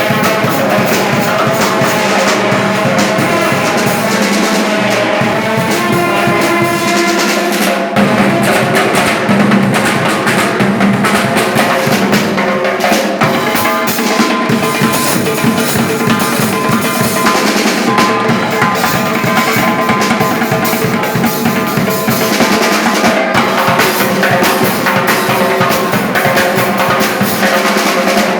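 Loud band music with a drum kit keeping a steady beat under sustained melodic instruments, playing without a break.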